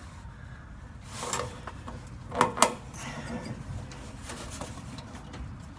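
Two sharp knocks close together about two and a half seconds in, after a brief rustle a second earlier, over a low steady hum.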